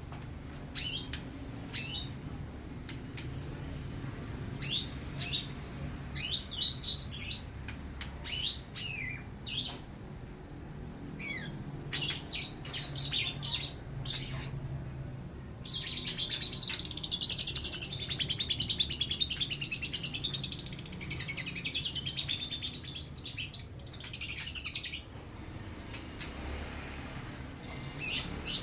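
Young long-tailed shrike singing: a string of short, high chirps, then a long, fast, loud chattering run about halfway through, followed by more chirp bursts. Its song carries imitations of house-sparrow and lovebird calls.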